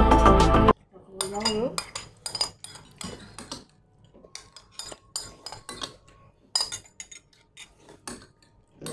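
Metal spoons clinking and scraping against glass bowls in quick, irregular strokes as people eat fast from them. Loud background music cuts off abruptly under a second in.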